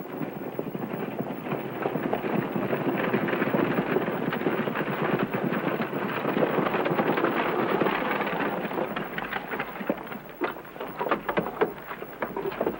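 Horses' hooves trotting on a dirt road with the rattle of a horse-drawn buggy's wooden wheels, a dense fast clatter that thins to separate hoof strikes near the end as the buggy pulls up.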